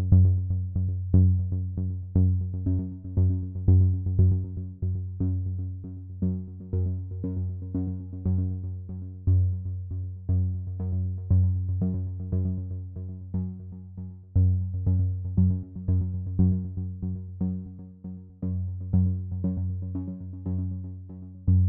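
Background electronic music with a steady beat: a low bass line under repeated synthesizer notes, with an accent about once a second.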